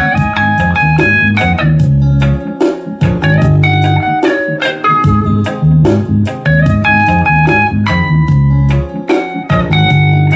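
Reggae music in an instrumental passage: a deep bass line and drums under an electric guitar picking single-note melody lines. The guitar is an Ibanez semi-hollow electric.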